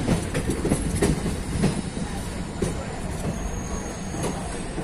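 A moving passenger train's wheels clattering irregularly over rail joints and points as it changes track, over a steady rumble of running gear. A faint high wheel squeal comes in for about a second past the middle.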